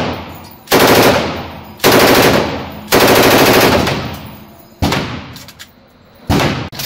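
A full-auto firearm fired indoors in four bursts about a second apart, each about half a second of rapid shots that ring off the range walls. Two shorter bursts follow, one about five seconds in and one near the end.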